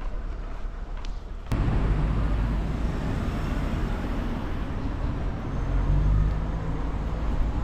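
Outdoor urban ambience that cuts abruptly, about a second and a half in, to louder road-traffic noise: a steady low rumble of nearby vehicles with a hiss of tyres and engines over it.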